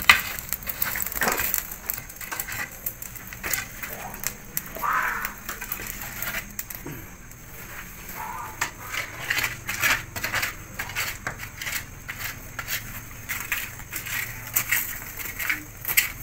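A wooden pole raking and poking through a bed of hot charcoal embers, heaping the coals over buried fish parcels; the charcoal crunches and clinks in irregular clicks and scrapes.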